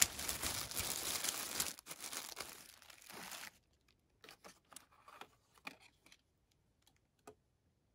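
Thin plastic bag crinkling as it is handled, for about three and a half seconds, then a few soft clicks and rustles as small items are moved about.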